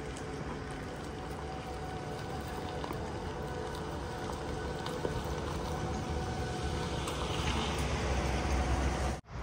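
Toyota RAV4 Hybrid slowly reversing into a dirt parking spot: a steady rolling noise of tyres on dirt and gravel over a low rumble, growing slightly louder near the end.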